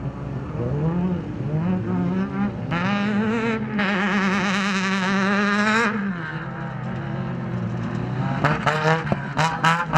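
Off-road race vehicle's engine revving up and down repeatedly, strongest and wavering in pitch about three to six seconds in. A few sharp knocks come near the end.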